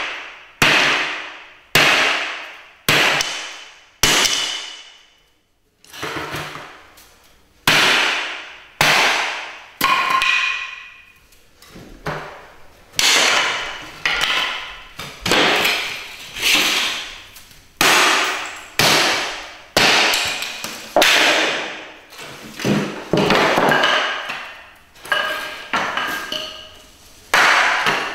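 Hatchet blows chopping into a chair, about one a second, each a sharp crack with a short ringing decay. There is a brief lull with softer knocks about five to seven seconds in, then the steady chopping resumes.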